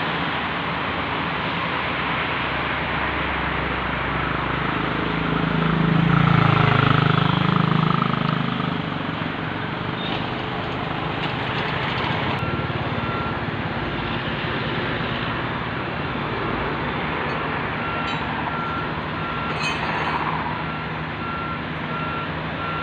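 Steady outdoor noise with a motor vehicle passing loudly about five to eight seconds in, its engine pitch sweeping as it goes by. From about halfway through, a reversing alarm beeps in an even on-off rhythm.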